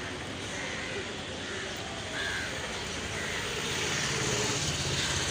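Steady road traffic noise, with a vehicle's engine rumble swelling about four seconds in.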